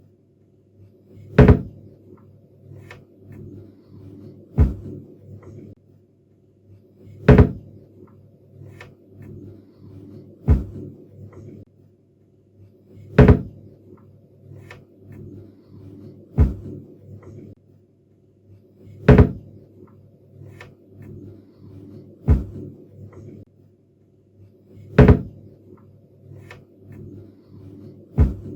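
A cabinet door being shut again and again, a sharp knock about every three seconds, alternately louder and softer, with faint clicks and rattles between the shuts.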